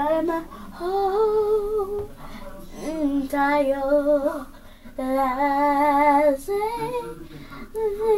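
A young girl singing a self-written song without accompaniment, in several phrases of long held notes with a slight waver in pitch.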